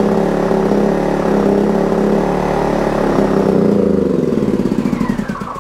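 Mickey Blu portable inverter generator running with its fuel turned off, starting to stumble and surge about three and a half seconds in, then slowing with a falling whine and dying near the end as it runs out of fuel.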